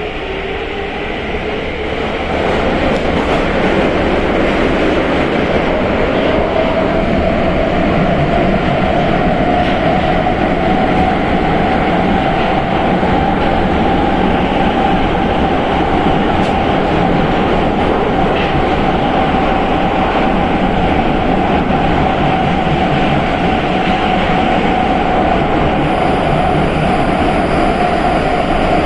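Prague Metro Line B train (81-71M stock) running on the rails with a steady loud rumble. A traction-motor whine rises in pitch over the first several seconds as the train accelerates, then holds steady at speed.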